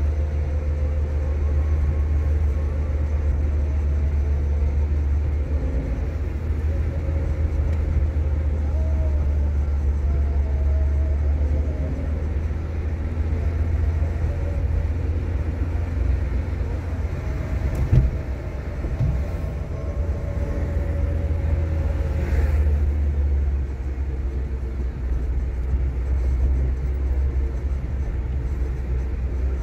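Car driving on the road: a steady low rumble of engine and tyres, with one sharp knock about eighteen seconds in.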